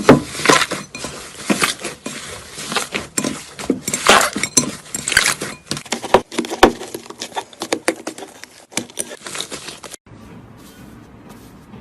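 Slime being squished and worked by hand, a dense run of irregular wet crackling pops and clicks. Near the end the sound cuts off suddenly and gives way to much quieter, softer handling.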